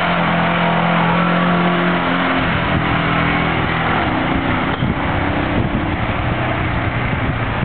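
ATV (quad bike) engine running under throttle as it splashes through mud and water. A steady engine note for the first two seconds or so gives way to a lower, rougher sound as the quad rides off.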